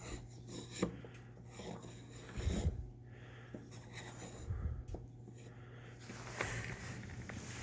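Small rack and pinion being worked by hand: faint scattered clicks and rubbing of the gear teeth, with two low thumps about two and a half and four and a half seconds in, over a steady low hum.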